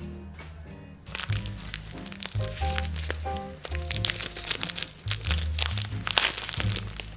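Clear plastic shrink-wrap crinkling as it is peeled off a pair of cork coasters, starting about a second in, over background music with a steady bass line.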